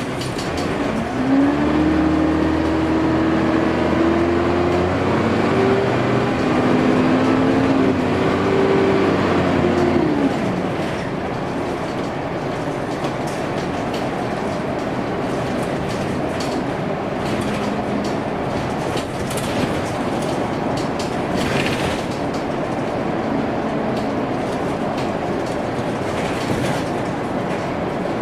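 Dennis Dart SLF bus accelerating, its engine note climbing with a slight vacuum-cleaner-like 'hoover' whine over it. About ten seconds in the engine eases off, and the bus runs on with a steady rumble and occasional rattles.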